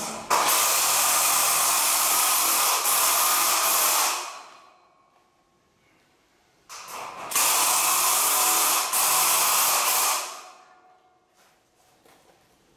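Milwaukee M12 Fuel cordless drill driving screws into a light-gauge galvanized steel roof truss. It makes two runs of about four seconds each, with a pause between them, and each run dies away as the screw seats.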